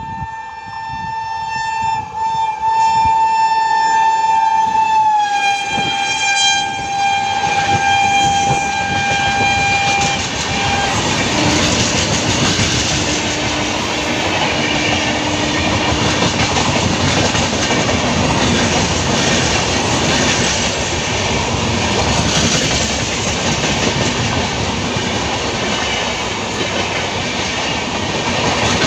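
Express train passing at speed: its locomotive horn sounds a long continuous blast that drops in pitch about five seconds in as the locomotive goes by. The horn ends about ten seconds in, and the loud rush and rapid clickety-clack of the coaches running past follow.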